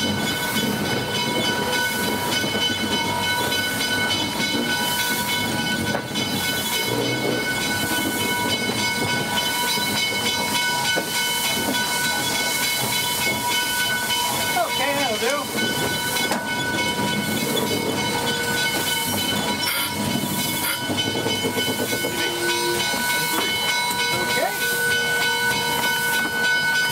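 Steam hissing steadily in the cab of a steam locomotive, ex-Pennsylvania Railroad 643, as it rolls, with a steady high-pitched whine over the hiss.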